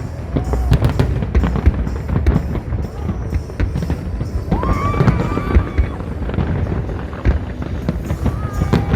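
Aerial fireworks going off in quick succession: many overlapping bangs and crackles over a continuous low rumble.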